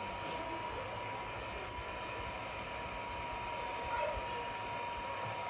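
Hot-air blower running steadily: an even airy rush with a thin, constant high whine.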